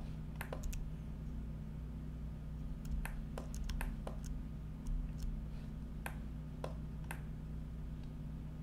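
Irregular clicks of a computer mouse and keyboard, some in quick pairs and threes, with a steady low hum beneath.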